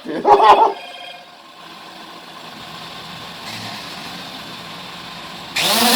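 SJRC F11 quadcopter's brushless motors running in a test flight: a faint steady whirr, then a sudden loud rise near the end as the motors throttle up to a dense buzzing whine.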